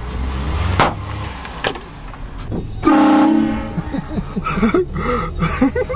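Vehicle-mounted train horn blasting once about three seconds in: a short chord of several tones at once, over the low running of the car's engine. Voices follow near the end.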